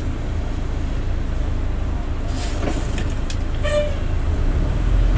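Bus engine heard from inside the driver's cab: a steady low drone that grows louder and deeper near the end as it pulls harder. A short, high beep sounds about three and a half seconds in.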